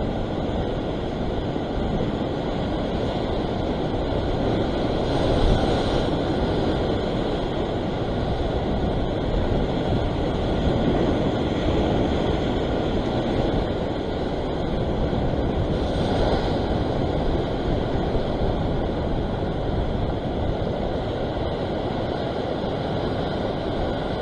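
Ocean surf breaking and washing over a rock shelf, a steady rushing with wind buffeting the microphone. The wash swells a little twice, about five and sixteen seconds in.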